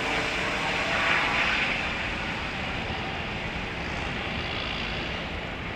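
Eurocopter EC135 twin-turbine helicopter flying overhead. Its steady rotor and turbine noise, with a bright hiss, fades gradually as it moves away.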